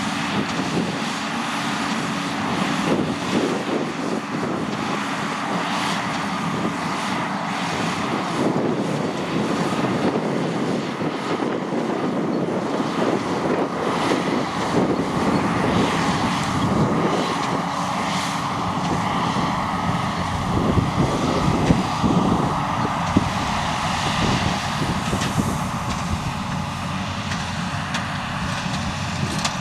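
John Deere tractor's diesel engine running steadily under load, a continuous drone with irregular mechanical clatter over it.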